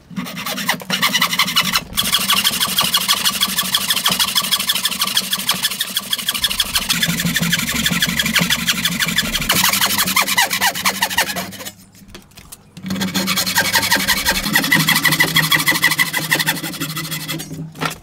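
Wooden frame saw cutting into a timber block in quick back-and-forth strokes, the teeth rasping through the wood. There is a short pause about twelve seconds in before the sawing resumes.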